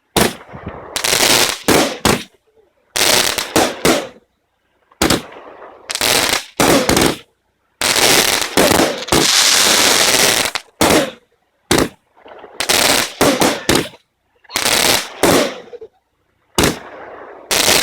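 Winda "Attitude Adjustment" 24-shot fan cake firing: loud volleys of shots and bursting breaks in quick clusters with brief pauses between them, and one longer unbroken run of bursts about eight to ten seconds in.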